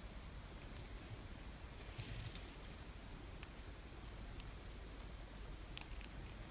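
Faint hand-work sounds of a yarn needle being worked through crocheted cotton stitches. A brief soft rustle comes about two seconds in, with scattered light clicks and a quick cluster of clicks near the end.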